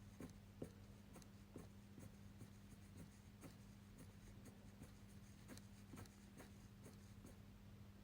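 Fineliner pen with a 0.4 mm nib drawing short strokes on paper: faint, irregular scratchy ticks, several a second.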